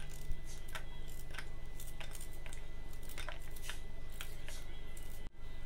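Small kitchen knife cutting through a raw onion held in the hand: a series of short, crisp crunches, irregular at about two a second.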